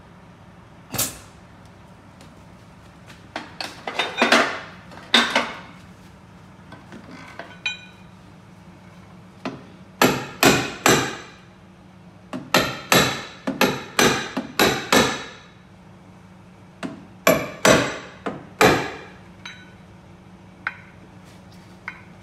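Hammer blows on the damaged steel sill of a Peugeot 208 being straightened on a jig. About two dozen sharp, ringing metal strikes come in quick runs, with pauses between the runs.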